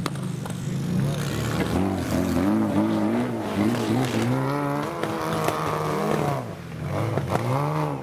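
Modified off-road 4x4 competition vehicle's engine being revved hard in repeated surges, its pitch rising and falling again and again as the driver works it through a muddy water obstacle; a brief drop about six and a half seconds in, then another rev near the end.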